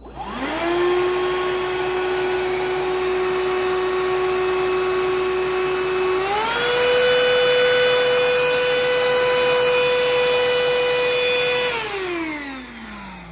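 Black & Decker Dustbuster cordless handheld vacuum switched on and running with a steady motor whine. Its pitch steps up about six seconds in. It is switched off near the end and spins down with a falling whine. The vacuum keeps jamming up on the cereal it is sucking up.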